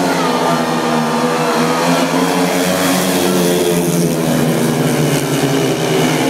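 Several speedway bikes' 500 cc single-cylinder methanol engines racing flat out together, their overlapping notes rising and falling as the riders go through the bend.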